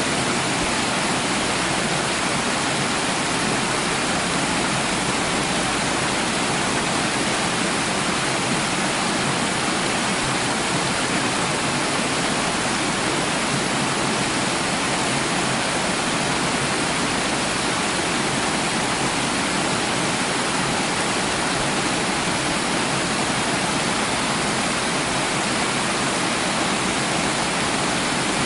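Running water, a steady, even rush that does not change.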